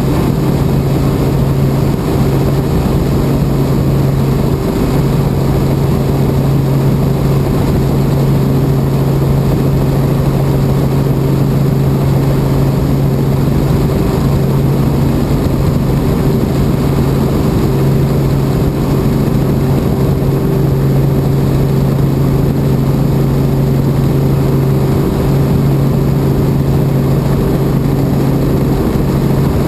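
Helicopter running in flight, heard from inside the cabin: a loud, steady drone with a constant low hum and no breaks.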